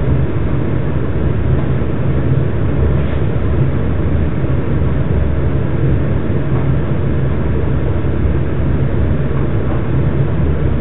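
A steady low rumble, level and unchanging throughout.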